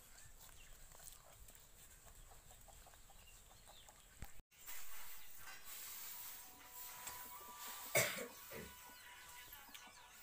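Domestic chickens in a village yard, with one loud short squawk falling in pitch about eight seconds in and a weaker one just after; the sound drops out briefly about halfway through.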